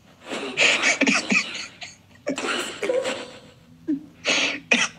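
A person laughing in three breathy bursts, stifled and spluttering, with short pauses between them.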